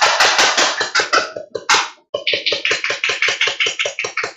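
Motorized VASVARN 1911 gel ball blaster firing on full auto, its gearbox cycling at about ten shots a second. Two bursts: the first trails off after a little over a second, and the second starts about two seconds in.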